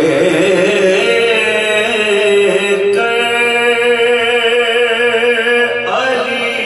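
A group of men singing a soz, a Shia elegy in Urdu, with a lead voice at the microphone and the others joining on long held notes; the melody shifts to a new note about halfway through and again near the end.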